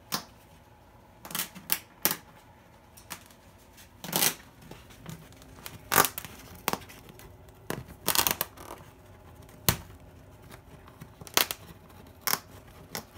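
Umbrella cockatoo chewing and tearing at a wall mural with its beak: irregular crunches and clicks with a few longer rips.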